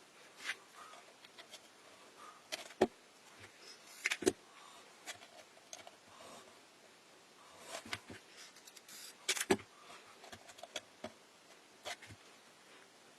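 Irregular taps, clicks and knocks of small objects being handled and set down, the sharpest about three seconds in, at about four seconds and near nine and a half seconds.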